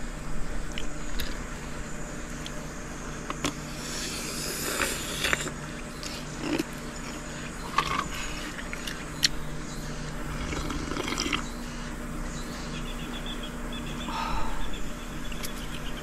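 Scattered handling sounds of a tumbler and gear on a camp table: a few light clicks and knocks, with a longer rustle about four seconds in, over a steady low hum.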